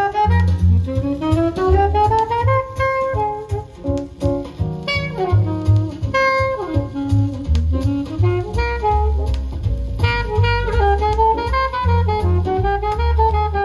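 1950s jazz quartet recording playing from a vinyl LP: a saxophone line running up and down in quick phrases over a walking double bass.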